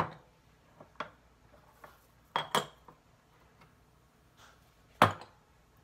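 A few separate clinks and knocks of glass bowls and kitchen utensils on a countertop, one with a brief glassy ring, the loudest a knock about five seconds in, with quiet between.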